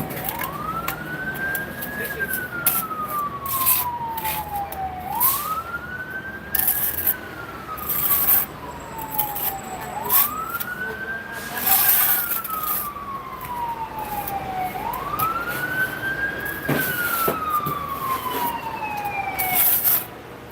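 Emergency vehicle siren wailing: each cycle rises quickly, then falls slowly over a few seconds, repeating about every five seconds, four times. Sharp knocks and clicks are scattered through it.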